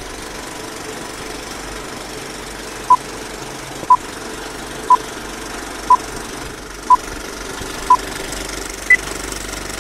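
Film countdown leader: short beeps once a second, six at the same pitch, then a single higher beep about nine seconds in, over a steady mechanical rattle and hiss.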